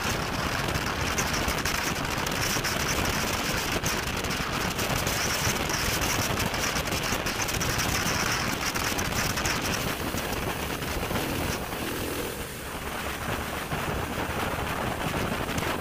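Motorcycle riding at road speed, heard as a constant rush of wind over the microphone with rapid crackling buffets and the bike's engine and road noise underneath.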